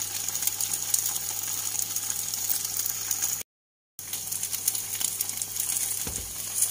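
Eggs frying in hot pork lard in a pan: a steady sizzle with fine crackles. It cuts out completely for about half a second a little past the middle, and a soft low thump comes near the end.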